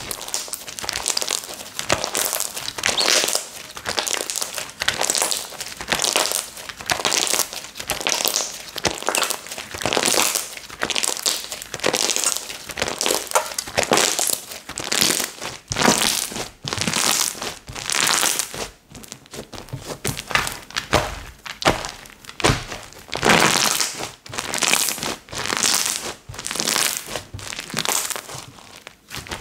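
Hands squishing, pressing and stretching a long-neglected slime. It gives a dense, irregular string of short squishing and crackling noises.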